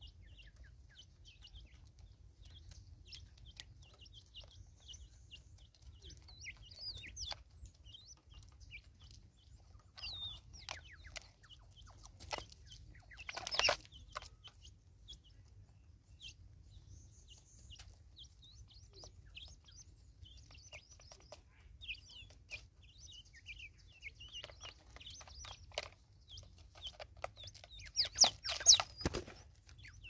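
Natal spurfowl clucking as they feed, with short high chirps from small birds throughout. There are two louder bursts, one about halfway through and a cluster of them near the end.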